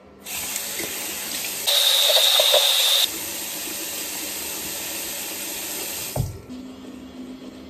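Bathroom sink tap running, with water splashing over hands as the face is washed. The rush gets louder and brighter for about a second and a half near two seconds in, and the water stops about six seconds in.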